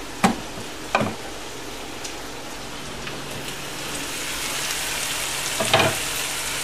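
Pork strips, chopped onion and garlic frying in a pan, a steady sizzle that grows louder after about four seconds. A knife knocks twice on a wooden cutting board in the first second, and there is another knock near the end.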